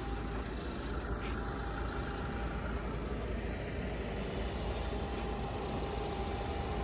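Steady airport ramp noise: a low rumble with a faint steady whine from jet engines running out on the apron, and wind on the microphone.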